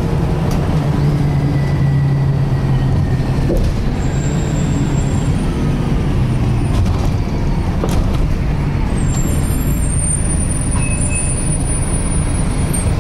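Volvo B10BLE single-deck bus under way, heard from inside the saloon: a steady low drone from the engine and drivetrain, with a faint whine, slowly falling in pitch, from the differential, which the uploader finds unusual for this model. A thin high whistle joins near the end.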